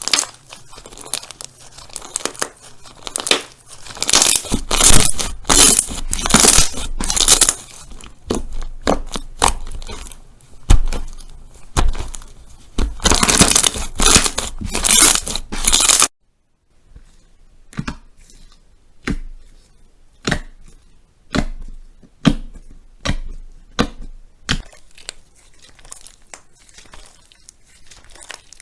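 Slime being worked by hand, with dense crackling, popping and tearing noises. About 16 seconds in the sound cuts off abruptly, then a quieter run of separate pops and clicks follows.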